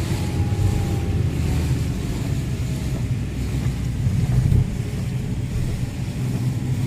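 A car driving slowly in town traffic, heard from inside the cabin: a steady low engine and road rumble, with a faint, slowly falling whine in the first few seconds.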